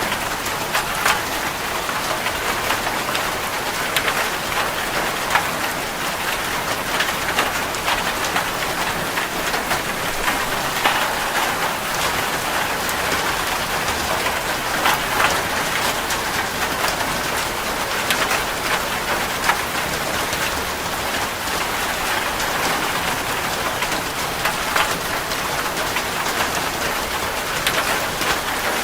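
Steady rainfall, many drops pattering on a surface, with frequent sharper individual drop hits standing out.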